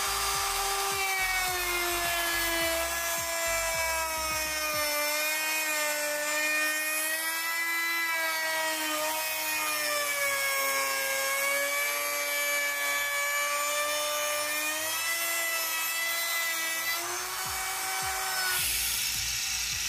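Ridgid compact handheld router running, its bearing-guided bit cutting a 1/8-inch lip around the inside of a circular hole in a pine board. A steady motor whine whose pitch wavers and dips slightly as the bit takes load, stopping shortly before the end.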